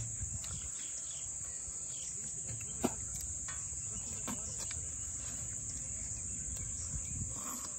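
Insects chirring in a steady, high-pitched, unbroken drone, with a sharp click about three seconds in and a fainter one a second or so later.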